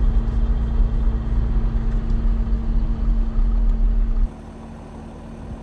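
Jeep Gladiator's 3.0-litre EcoDiesel V6 running as the truck rolls slowly along a dirt track, a loud low rumble with a steady hum. A little over four seconds in it drops suddenly to a much quieter, steady engine hum.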